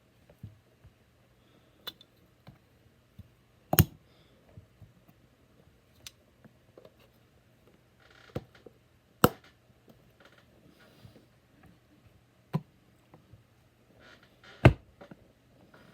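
Plastic Lego Technic parts clicking and knocking as they are handled and pressed together, small scattered clicks with three louder clacks spread through it.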